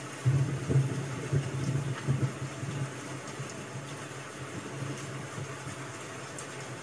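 Steady rain-sound ambience with an uneven low rumble over the first three seconds.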